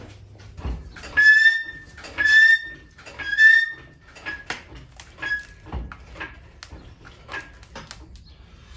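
Dog whining: three loud, high whines about a second apart, each rising slightly, then several shorter, fainter ones. A couple of low thumps fall among them.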